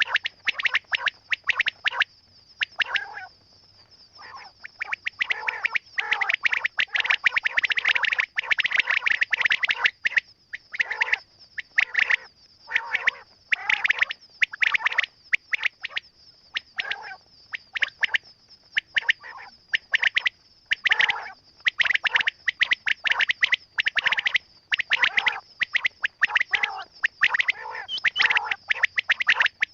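Quail calling over and over in rapid, chattering bursts separated by short pauses, with a steady high tone running underneath.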